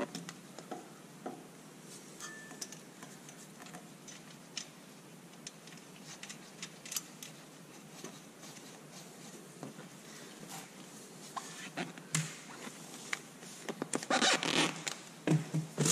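Faint handling noises: light clicks and scrapes as a small electric pump and its clamp are fitted by hand to a metal frame tube, with a louder rasping scrape near the end.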